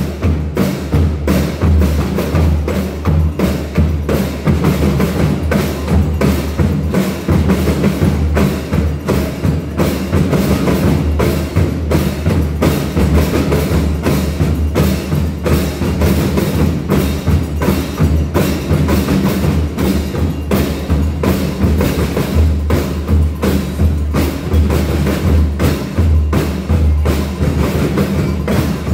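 Marching band percussion playing a steady, driving rhythm: bass drums and snare drums beating together with sharp, evenly repeated strokes.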